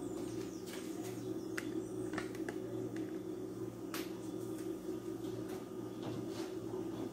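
A steady low hum with a few light taps and clicks, the sharpest about four seconds in, as hands handle a gas stove and lay a dish towel over its glass lid.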